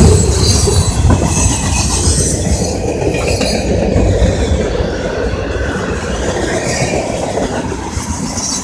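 Freight cars of a CSX freight train rolling past at close range, with high-pitched wheel squeal in the first few seconds; the noise slowly grows fainter as the rear of the train goes by.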